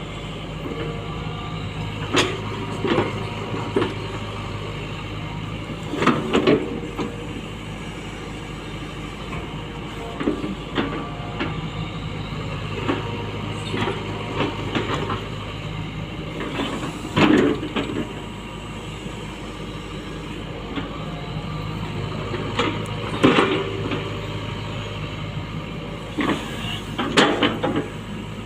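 Hitachi Zaxis 120 excavator's diesel engine running steadily under work, with irregular clanks and scrapes from the bucket and linkage as it digs, several of them loud and in quick clusters.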